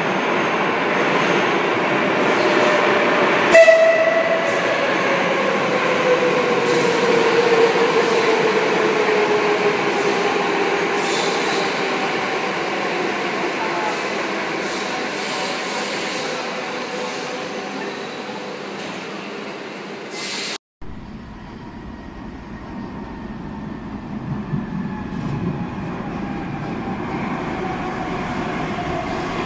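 Madrid Metro 5500-series electric trains arriving in underground stations: motor whine falling steadily in pitch as the train slows, over wheel and track noise that echoes in the station. A short loud blip comes about three and a half seconds in. The sound cuts off abruptly about two-thirds through, and a second, quieter arrival follows with gliding whine tones.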